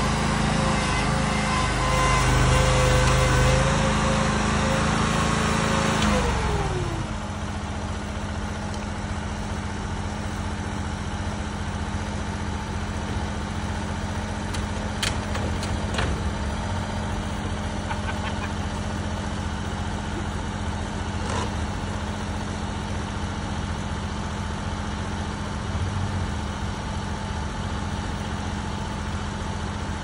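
Chinese mini skid steer's small engine running at high throttle as the machine drives, then dropping in pitch to idle about six or seven seconds in and idling steadily. A few sharp knocks come around the middle.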